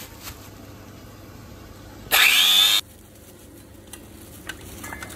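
Electric spice grinder with a stainless steel pot running loud for under a second, grinding coriander seeds, then cutting off abruptly about halfway through. A couple of faint clicks follow.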